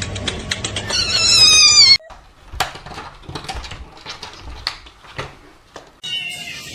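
Cat sounds from several short clips: a rapid run of clicks, then a loud wavering meow-like cry about a second in. This gives way to soft scattered taps and knocks, and near the end another falling, wavering cat call.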